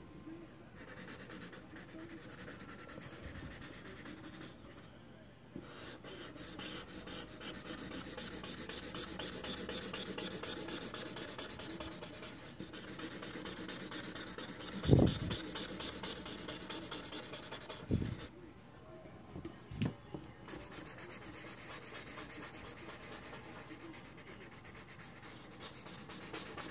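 Sharpie King Size marker rubbing and scratching across paper in quick back-and-forth strokes, filling in an area with solid black. A few dull thumps come around the middle, the loudest about halfway through.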